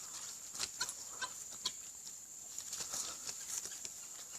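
Domestic fowl giving a scatter of short, soft clucks and peeps.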